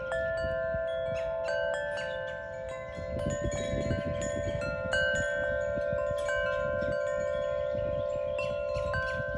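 Wind chimes ringing: metal tones struck at uneven intervals that overlap and sustain, over a low rumble.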